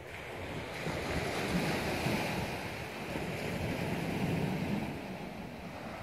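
Wind and surf washing against a rocky shore, an even rushing noise with a low rumble of wind on the microphone, swelling about a second in and easing near the end.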